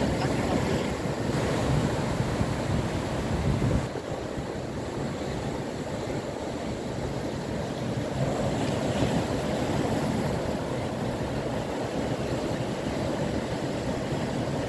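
Ocean surf breaking over rocks and washing in, with wind rumbling on the microphone that eases about four seconds in.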